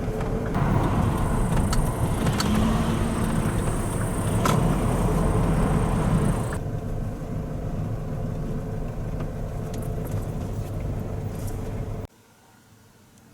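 Motor vehicle running: a steady low road-and-engine rumble with light clicks and rattles. It is louder for the first half, steps down partway through, and cuts off abruptly near the end.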